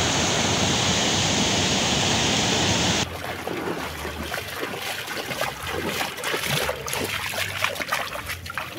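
Muddy floodwater rushing in a loud, steady hiss, which cuts off abruptly about three seconds in. Then come quieter splashes of someone wading step by step through shallow standing floodwater.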